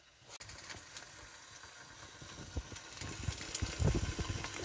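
Bacon frying in a small stainless steel dish on a camp stove: a dense crackling sizzle that starts shortly in and grows louder toward the end, with a few low thumps late on.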